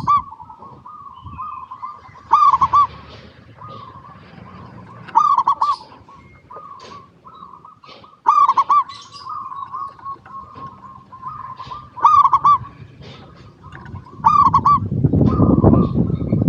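Zebra dove (perkutut) singing its cooing song: a loud rolling coo about every three seconds, with softer trilling coos between. A low rumbling noise comes in over the last couple of seconds.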